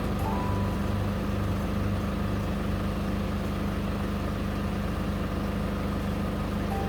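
Toyota HiAce KDH206V's 1KD-FTV turbo-diesel engine idling steadily.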